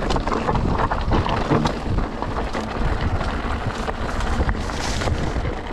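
Wind buffeting the microphone of a mountain bike's onboard camera while riding, with the rattle and knocks of the bike over a rough trail. It eases off slightly near the end.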